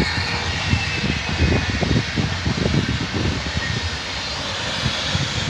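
A locomotive-hauled train of passenger coaches rolls past close by, with a steady rumble and hiss of wheels on rails and an uneven low thumping. The locomotive at the rear passes near the end.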